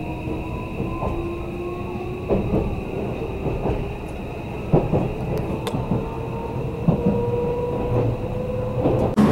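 Odakyu 30000 series EXEα Romancecar electric train heard from inside the passenger cabin as it pulls out of a station: the traction motors whine and rise slowly in pitch as the train gathers speed. Irregular clicks come as the wheels pass over rail joints.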